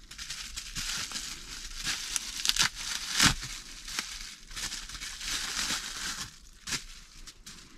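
Plastic bubble wrap crinkling and rustling as it is unwrapped by hand, with many small crackles and a louder crackle about three seconds in.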